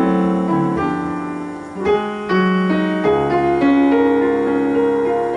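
Piano playing alone between sung phrases of a chanson: a slow melody over chords, new notes struck every second or so and left to ring.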